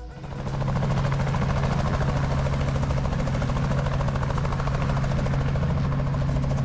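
Helicopter in flight, its rotor beating rapidly and evenly over a steady low engine tone. It comes in suddenly and runs steadily after that.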